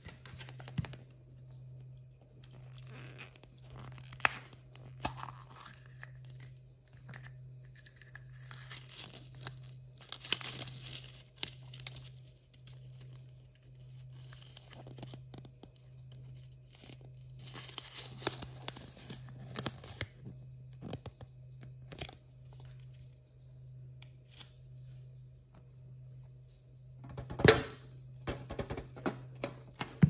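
Blind-bag toy packaging handled close up: plastic capsules clicking open, and paper and plastic wrappers crinkling and tearing, with a louder flurry of rustling and clicks near the end. A steady low hum runs underneath.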